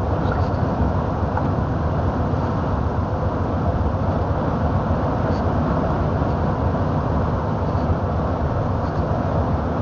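Steady low rumble of a truck's engine and road noise inside the cab while it drives.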